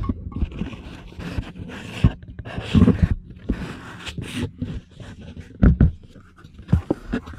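Handling noise from a handheld camera and bumping about in a truck's sleeper cab: irregular rustles, scrapes and several dull knocks over a low steady hum.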